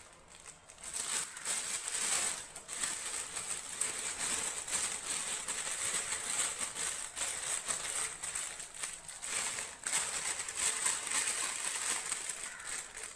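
Thin disposable plastic piping bag crinkling and rustling without a break as hands push a plastic coupler down inside it, starting about a second in.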